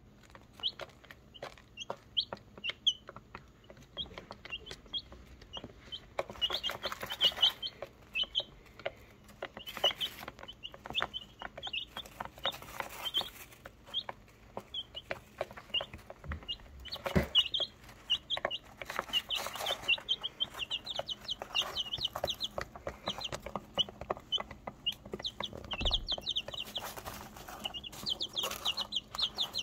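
Barnyard-mix chicks peeping: short high cheeps throughout, coming in quick runs near the end. Bursts of rustling in wood shavings and a single knock about halfway through.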